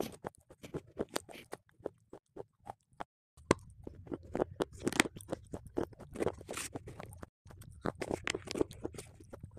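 Close-miked biting and chewing of a chocolate bar: crisp snaps and crunches with wet mouth sounds, in a quick irregular run. The sound cuts out briefly twice.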